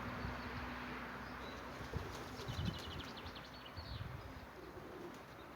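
Wind buffeting the microphone in low, fading gusts and thumps, with faint high bird chirps about one and a half to three seconds in.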